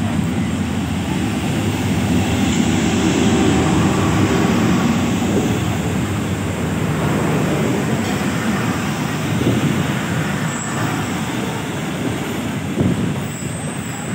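Steady rumbling noise of a passenger train running, swelling and easing slightly, with no clear engine note.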